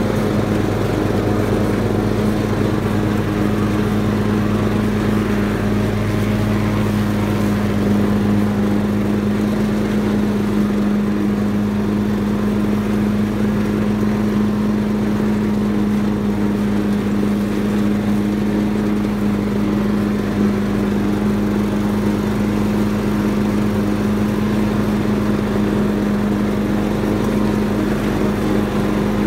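Ride-on tractor lawnmower engine running at a steady speed while mowing, a constant drone with no change in pitch.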